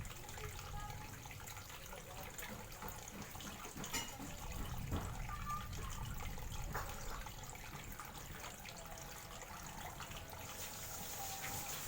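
Water trickling and dripping steadily, with many small bubbling plinks.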